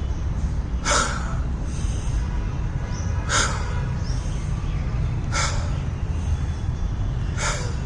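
A person taking four short, sharp breaths, about two seconds apart, during a breathing exercise, over a steady low rumble.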